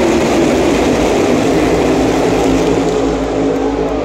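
A field of NASCAR Cup Series stock cars running as a pack on the superspeedway, their V8 engines blending into one loud, steady drone.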